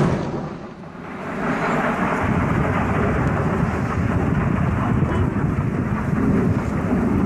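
Rolling rumble of the SpaceX F9R Dev1 test rocket exploding in flight, heard from the ground. It swells about a second in and then holds steady.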